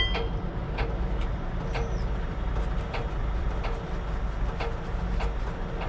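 Heavy diesel vehicle engine running at idle, a steady low rumble, with faint light ticks about every three-quarters of a second.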